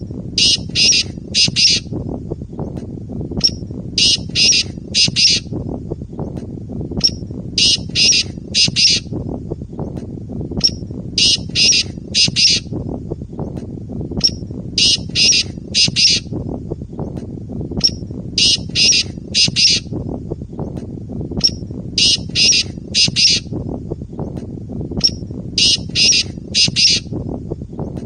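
Black francolin calling: a harsh, grating phrase of one short note followed by three rasping notes, repeated about every three and a half seconds, eight times. A steady low rumble lies beneath.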